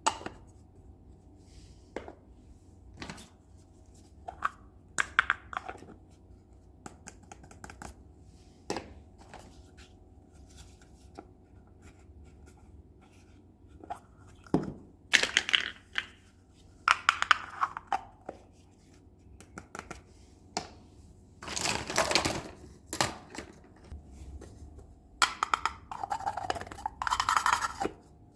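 Plastic packaging rustling and tearing during the unboxing of a toy kitchen set, with scattered light clicks and taps of small plastic toy pieces being handled. The louder rustling comes in bursts: once about halfway through and twice more near the end.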